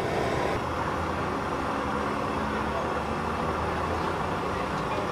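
Steady low rumble of nearby road traffic, with faint voices in the background.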